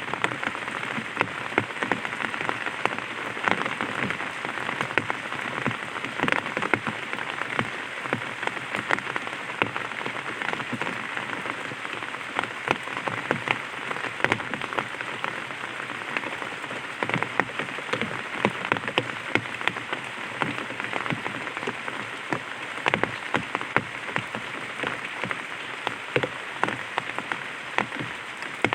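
Light rain pattering on an umbrella: a steady wash of many separate drop taps, with no change in intensity.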